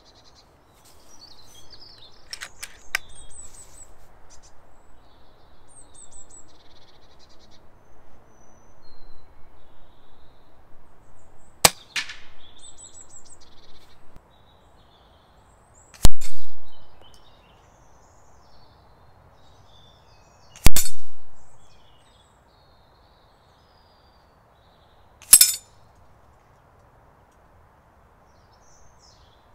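Air rifle pellets striking a metal spinner target: three sharp hits a few seconds apart, the first two ringing and rattling away over about a second as the paddles swing. Birds chirp faintly in the first half.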